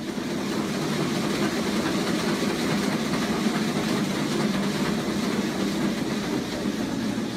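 Curved non-motorized slat treadmill spinning at sprint speed under a runner: the slat belt and his rapid footfalls make a steady, even clattering rumble.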